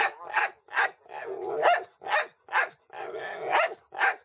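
Dog barking repeatedly at a housecat: short sharp barks about two a second, twice running into a longer drawn-out bark.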